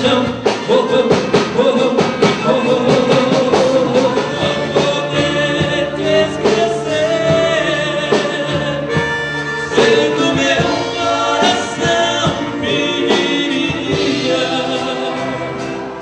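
Two male singers singing a duet into microphones over a live band with drums and guitar, a steady beat under the voices.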